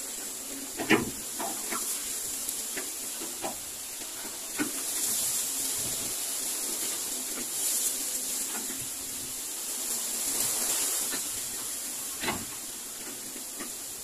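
Steady high-pitched outdoor hiss that swells and fades a few times, broken by several short sharp ticks, the loudest about a second in and another near twelve seconds in.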